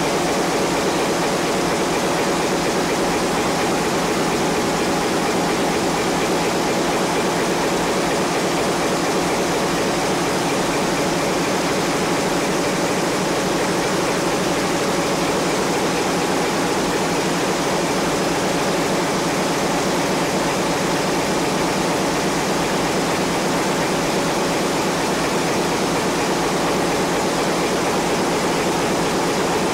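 Large marine diesel engine running at a steady speed, heard at close quarters in a ship's engine room: a loud, unbroken noise of machinery that does not change.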